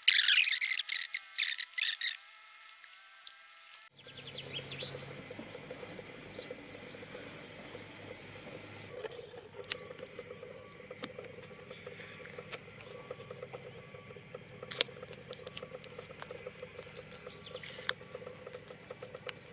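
A burst of high chirps for about the first two seconds, then soft handling noise of hands stitching and wrapping rope ends in electrical tape: scattered small clicks and rustles over a quiet steady background.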